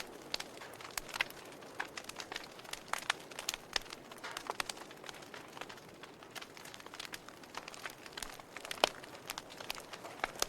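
Wood fire crackling in a fireplace: irregular sharp pops and snaps over a soft steady hiss, with one louder pop about nine seconds in.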